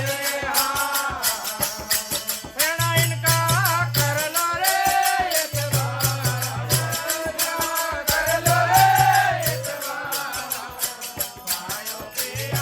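Desi bhajan folk music: a melody that slides and wavers in pitch over a fast, steady rattle of hand percussion, with low bass notes coming in for a second or two every few seconds.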